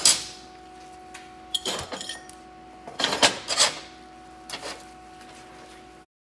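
Aluminium plates being handled and set down on a steel welding table: sharp metallic clanks and clinks in a few clusters, over a faint steady hum. The sound cuts off suddenly near the end.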